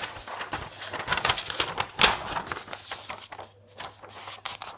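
Sheets of paper rustling and sliding as they are handled and swapped on a desk, an irregular run of crackles with a louder rustle about two seconds in.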